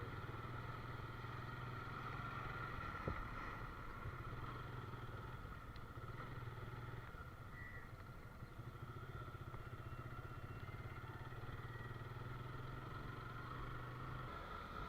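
An engine running steadily with a low hum, and a single sharp click about three seconds in.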